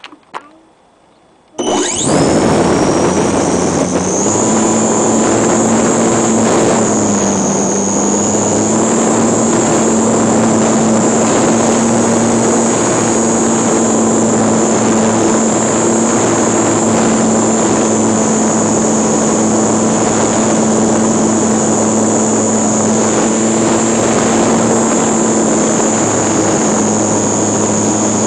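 GWS Slow Stick RC plane's electric motor and propeller, recorded by a camera on the airframe: about two seconds in the motor spins up sharply for takeoff, then runs steadily, with a high whine over a lower propeller drone and hiss.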